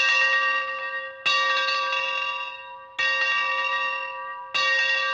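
A bell struck three times, about a second and a half apart, each stroke ringing out with several steady tones that slowly fade, the first still ringing from a stroke just before.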